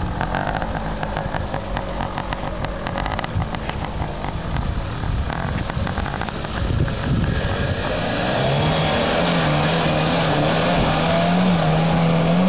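Small off-road 4x4's engine running as it crawls down a steep rutted dirt track, getting louder from about eight seconds in as it comes close, with a steady engine note.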